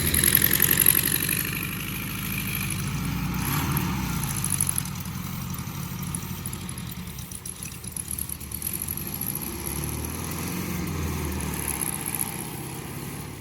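An engine running with a steady, uneven rumble, swelling in at the start and loudest in the first second.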